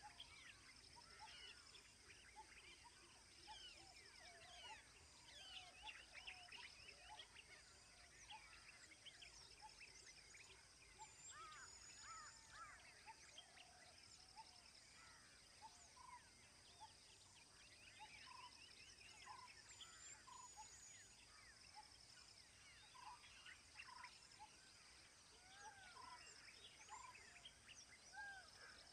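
Faint birdsong from several birds, short chirps and whistles, with one short call repeating about once a second in the second half, over a steady high-pitched trill.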